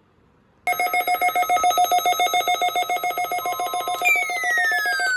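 Electronic ringing alert sound: a loud, rapidly pulsing multi-tone ring starts abruptly under a second in, and a long falling whistle comes in over it about four seconds in.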